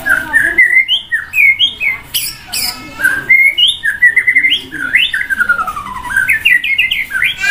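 Caged white-rumped shama (murai batu) singing loudly: a fast, varied run of whistled phrases, the notes sliding up and down, with a couple of harsh rasping notes a little over two seconds in.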